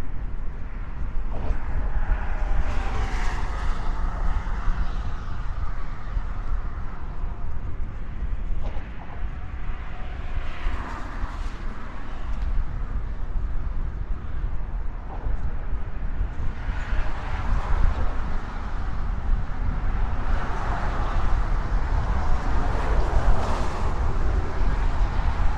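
Motor traffic passing on a highway bridge: a steady low rumble, with the tyre noise of passing vehicles swelling and fading a few times, longest over the second half.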